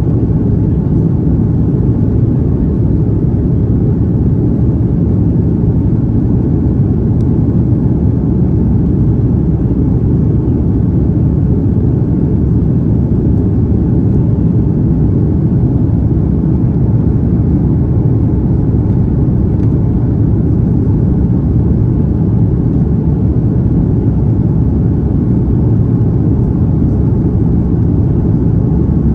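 Steady low rumble of jet engine and airflow noise inside an Airbus A330's passenger cabin.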